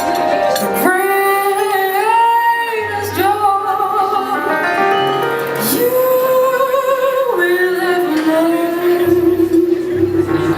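Female jazz vocalist singing long, held notes that bend in pitch, over piano accompaniment.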